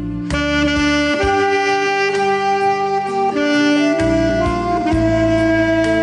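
Alto saxophone playing a slow melody in long held notes over a recorded backing track with bass and a steady beat.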